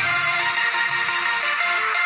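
Background music: a melody of short notes stepping from one pitch to the next several times a second.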